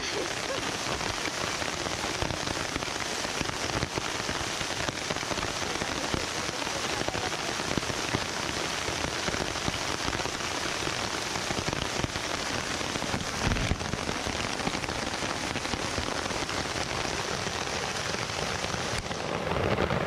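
Steady rain falling, with the even rush of a small waterfall beneath it. One short low thump about two-thirds of the way through.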